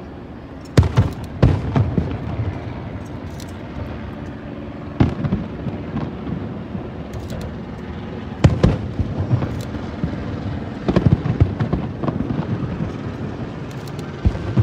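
Aerial firework shells bursting at a distance: sharp booms in clusters, several in the first two seconds, then more around five, eight and a half and eleven seconds in, and one near the end. Each boom trails off in echo over a steady low hum.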